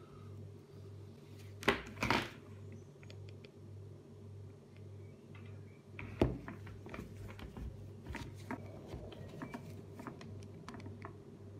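Handling noise of a plastic laptop power adapter and its cords being moved about on a table by gloved hands: two loud knocks and rustles about two seconds in, another about six seconds in, then a run of small clicks and taps. A low pulsing hum sits underneath.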